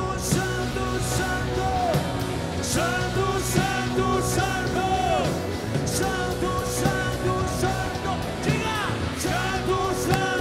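Live rock band playing loud, with distorted electric guitars, bass guitar and drums with regular cymbal hits, while a male singer sings over it.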